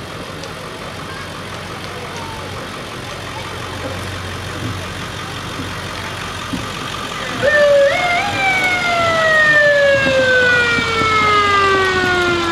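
A pickup truck's engine runs as it passes slowly at walking pace. About seven seconds in, a loud siren starts, stepping up in pitch twice and then winding slowly down.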